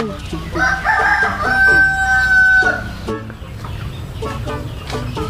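A rooster crowing once, about half a second in: a cock-a-doodle-doo of about two seconds that ends on a long held note.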